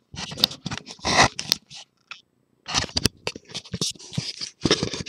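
Handling noise from a camera being gripped and repositioned: fingers rubbing and scraping against its body in irregular scratchy bursts, with a few sharp clicks.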